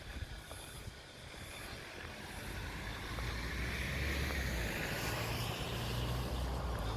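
A motor vehicle's engine hum and tyre noise growing louder over the first few seconds and staying up, with wind on the microphone.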